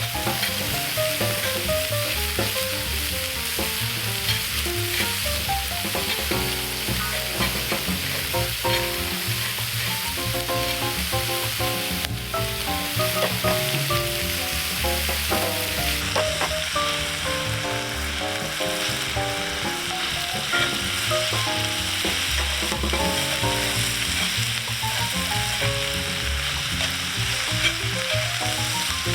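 Food sizzling as it fries, a steady crackling hiss, with background music of short melodic notes under it.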